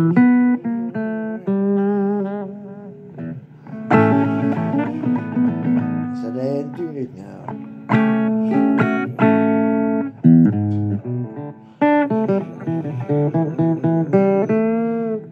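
Blues guitar playing picked single notes, some of them bent, with a hard-struck chord about every four seconds.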